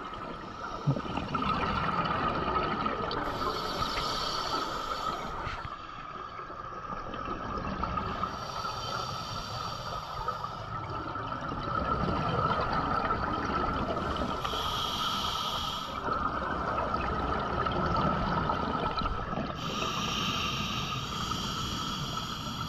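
Scuba regulator breathing underwater: four bursts of exhaled bubbles rushing out, about every five to six seconds, over a steady hiss.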